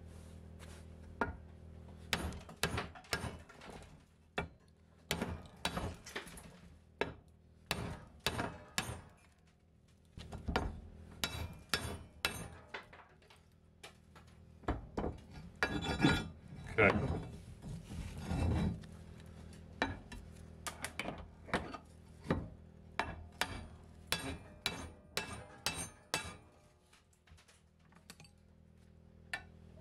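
Hammer blows on a rusty metal boat knee resting on a vice, knocking off flakes of rust and scale: irregular sharp strikes, a few a second, with short pauses and fewer strikes near the end.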